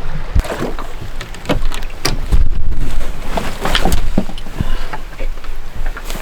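Irregular knocks and bumps on a boat over a steady low rumble, with the loudest knocks about two and a half seconds in and again near four seconds.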